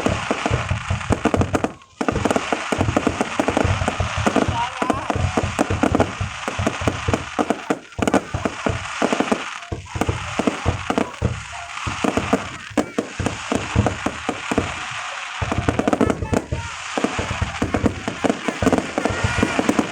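Aerial fireworks going off in a dense, continuous barrage of bangs and crackling, with a brief lull about two seconds in.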